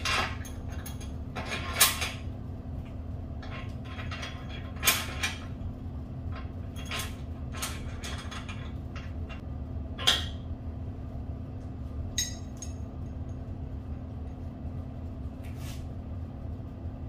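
Scattered metal clicks and knocks, about seven in all, as a bolt and washers are fitted and tightened through a car's front crash bar, over a steady low hum.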